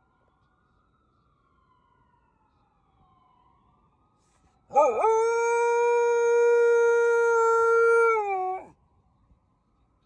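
A faint ambulance siren wails and wavers up and down, then about halfway through a corgi–chihuahua mix dog howls once, a loud steady-pitched howl of about four seconds that drops in pitch at the end, mimicking the siren.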